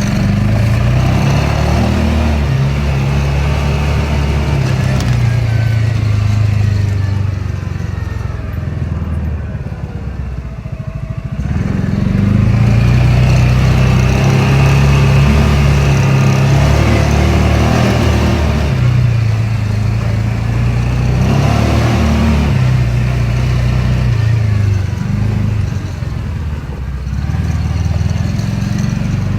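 Engine of a farm vehicle running while driving, its pitch rising and falling as it speeds up and eases off, with two softer stretches.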